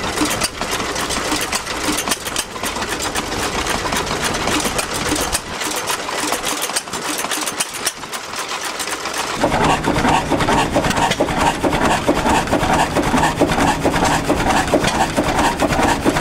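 Antique stationary flywheel gas engines running, a rapid, busy mechanical clatter. It gets louder and fuller about nine seconds in.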